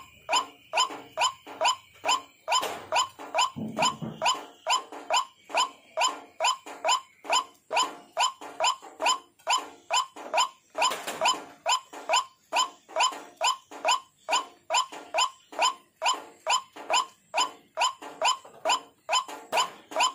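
White-breasted waterhen (ruak-ruak) lure call: short, sharply rising notes repeated over and over, about two to three a second.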